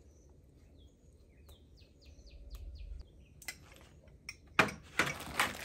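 Small birds chirping, a quick run of short falling chirps, then loud rustling and crinkling in the last two seconds.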